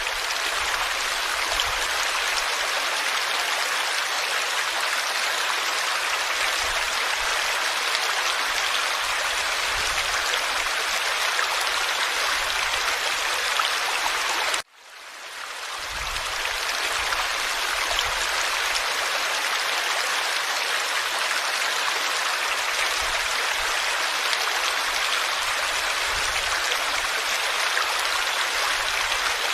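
Forest stream flowing, a steady rush of water. About halfway through it cuts out abruptly and fades back in over a second or so.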